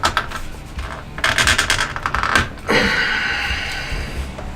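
Plastic steering-wheel trim cover being pried off its clips: a sharp click, a quick run of clicks and rattles, then a longer creak of plastic flexing and rubbing as the cover works loose.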